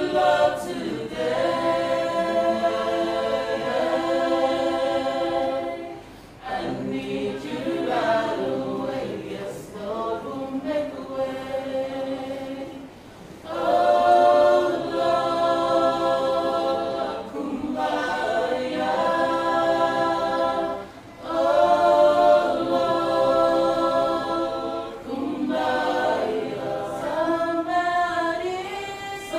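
A choir singing unaccompanied in slow, held chords, breaking off briefly between phrases about every seven seconds.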